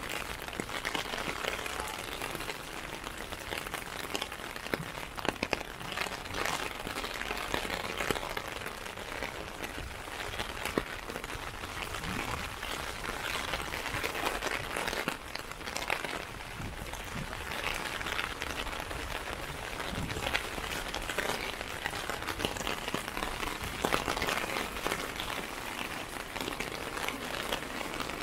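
Steady rain pattering on a clear plastic umbrella overhead: many small sharp drop hits over an even hiss.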